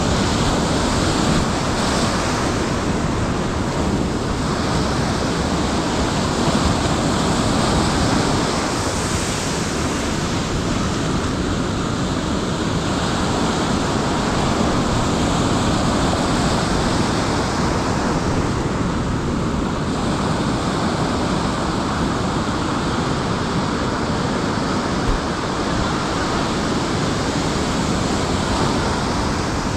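Ocean surf breaking on the shore: a continuous wash of waves that swells and eases every few seconds, with wind on the microphone.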